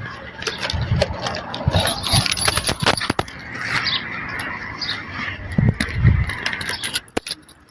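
Handling noise from a handheld phone camera carried while walking: rustling with many scattered clicks and taps, a few low thumps past the middle, and a sudden drop to quiet near the end.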